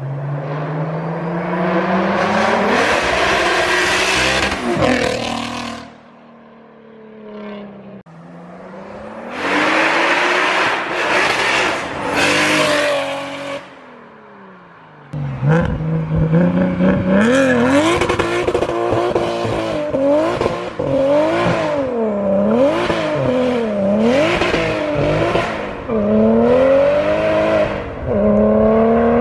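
Single-turbo BMW N54 inline-six with an aftermarket 3.5-inch exhaust pulling hard. It makes two long climbing pulls, each cut off when the throttle is lifted, then runs loud with the revs rising and falling about once a second.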